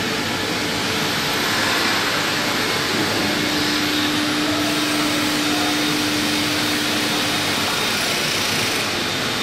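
Steady machine noise, an even blowing rush like a fan or extractor running, with a faint steady hum from about three seconds in until nearly eight seconds.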